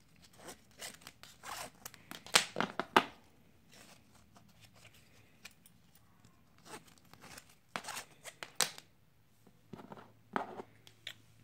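Nylon NATO watch straps being pulled out through the steel spring bars of a watch case: a run of short swishing strokes of webbing sliding against metal, loudest about two to three seconds in, with another run around eight seconds in and a few more near the end.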